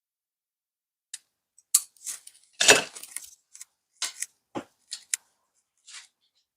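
Plastic Nerf blaster parts being handled and set down: a string of irregular small clicks, knocks and short scrapes, loudest about two and a half seconds in.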